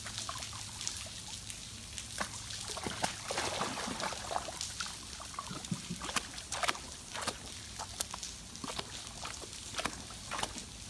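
Water sloshing and trickling as a Great Dane wades into a swimming pool, with short splashes, busiest in the middle. Rain hisses steadily on the water and deck.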